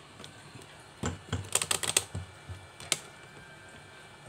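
A quick burst of sharp clicks, like typing on a computer keyboard, densest about a second and a half in and stopping about three seconds in.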